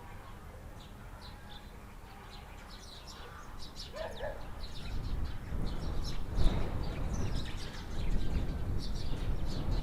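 Small birds chirping in quick, repeated short notes. A low rumble grows louder from about halfway and becomes the loudest sound.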